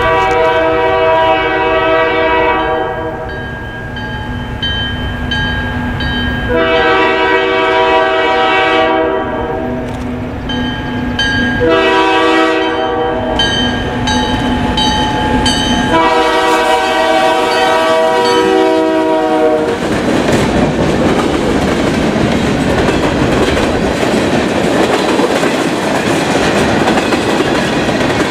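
Alco M420 diesel locomotive's multi-tone air horn sounding the grade-crossing signal: long, long, short, long. The locomotive and hopper cars then pass close on the rails, a loud, even noise with clickety-clack from the wheels.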